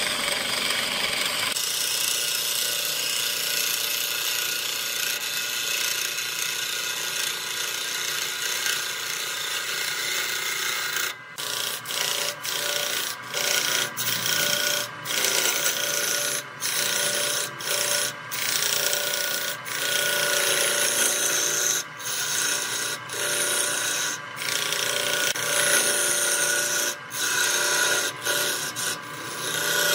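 A hand-held turning gouge cuts a large wooden blank spinning on a wood lathe, making a continuous scraping hiss with steady tones underneath. From about a third of the way in, the cut breaks off for a split second every one to two seconds.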